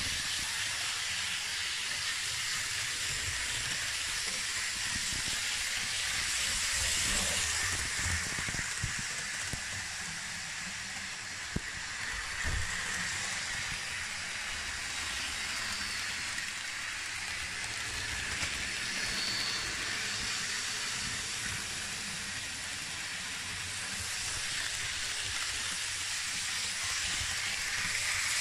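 Model diesel multiple unit running along the layout's track: a steady hiss of the wheels and motor, with a couple of soft knocks about halfway through.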